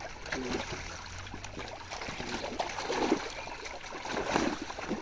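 Pond water splashing and trickling as it is disturbed, with a few louder splashes about four seconds in.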